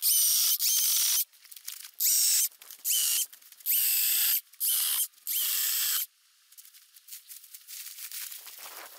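DeWalt DCCS620 20V cordless electric chainsaw run in about seven short bursts as it cuts small fallen limbs, each burst opening with a quick rising whine as the motor spins up and cutting off sharply when the trigger is released. After about six seconds the saw stops and cut branches crackle and rustle as they are dragged away.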